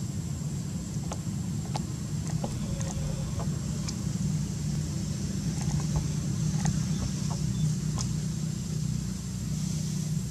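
A steady low rumble like a motor running, with a thin steady high tone above it and scattered light clicks.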